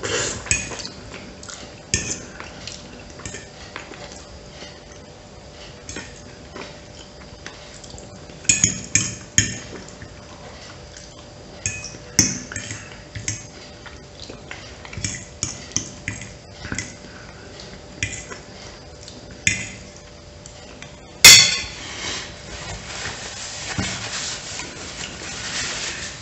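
Metal fork clinking and scraping against a ceramic plate while eating pasta in sauce, in short irregular taps with eating sounds between. One loud sharp clink near the end.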